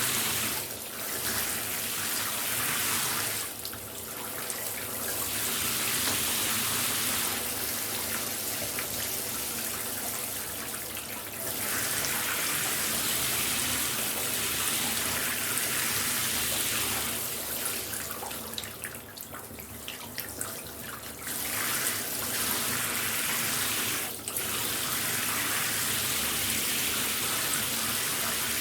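Shower running, its spray hissing steadily in a small room. The spray dulls and drops in level a few times, around four seconds in and again for a few seconds past the middle, as if something breaks up the stream.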